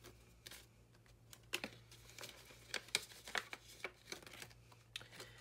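Soft crinkling and rustling of clear plastic cash envelopes and polymer banknotes in a ring binder as they are handled and a page is turned, with scattered light clicks.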